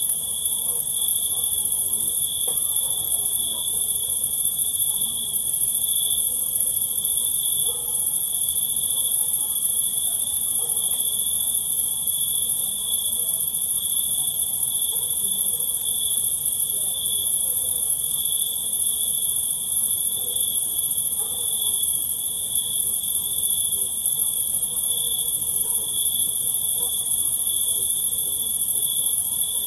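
Crickets chirping in a continuous chorus: a steady high trill that never breaks, over a fainter, even higher-pitched insect hiss.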